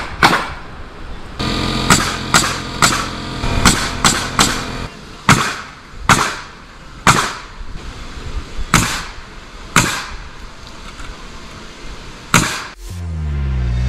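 Nails being driven into the wooden purlins and trusses of a pole-barn roof: a dozen or more sharp, ringing strikes, irregularly spaced about a second apart.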